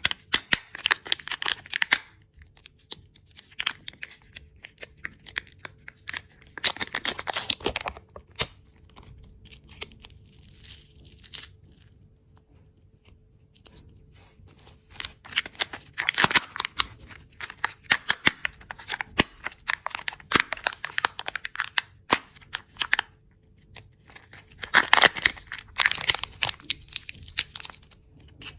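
Close-miked crinkling and crunching of candy and its packaging, in four or so bursts of dense crackles with quieter pauses between.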